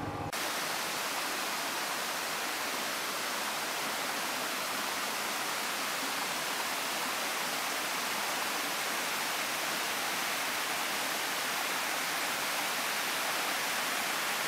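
Water rushing steadily over the rocks of a small forest waterfall and stream, an even unbroken hiss.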